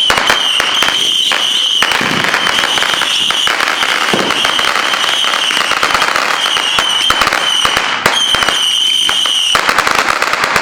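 Consumer fireworks going off in a dense, continuous run of rapid crackling pops, with a high steady whistle running through it. It all stops abruptly at the end.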